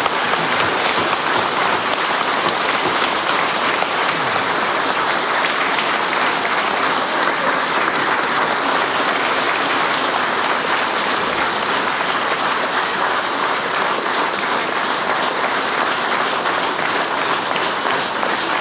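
A large congregation applauding steadily: dense, sustained clapping from many hands.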